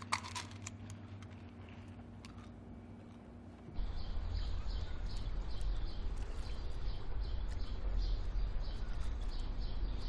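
A few light clicks over a quiet hum, then, about four seconds in, an outdoor ambience of small birds chirping over and over, about twice a second, over a low rumble.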